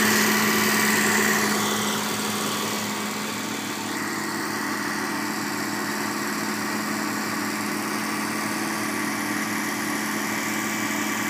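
Reliant Kitten's four-cylinder engine idling steadily, running for the first time in years after a new battery and fuel pumped round. It gets somewhat quieter over the first few seconds, then holds an even note.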